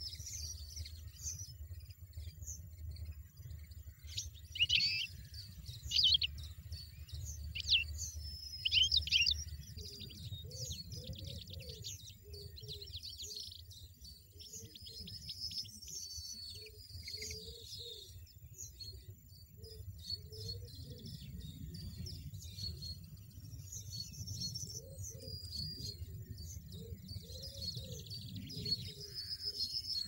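European goldfinches at the nest: a steady stream of high, thin chirps and twitters from the nestlings begging and the adult feeding them, with a burst of louder, sharp calls between about four and nine seconds in.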